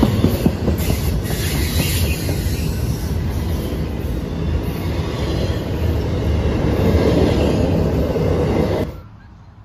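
Double-stack intermodal freight train's container well cars rolling past at close range: a steady loud rumble and clatter of steel wheels on the rails. The sound cuts off abruptly about nine seconds in.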